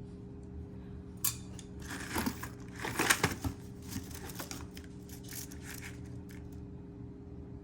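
Costume jewelry being handled and set down: a sharp click, then a cluster of rustling and light clicks a couple of seconds in, thinning out to a few scattered clicks, over a steady low hum.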